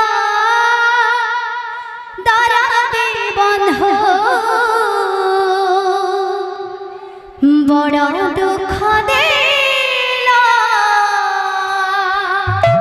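Female kirtan singer holding long, ornamented devotional notes with a wavering pitch, sung into a handheld microphone; three long phrases, with short breaks about two seconds in and about seven and a half seconds in.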